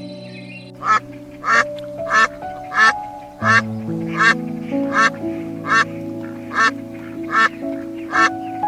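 An animal giving short calls repeated steadily, about one every 0.7 seconds, over gentle piano music.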